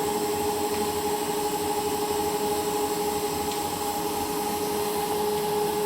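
Steady machine whine, two constant tones over an even hiss, holding the same level throughout.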